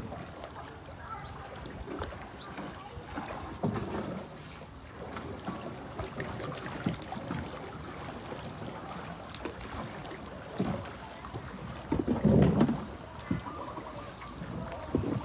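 Paddle strokes through floodwater beside a narrow paddled boat: irregular splashes and water swirling against the hull, the loudest splash about twelve seconds in.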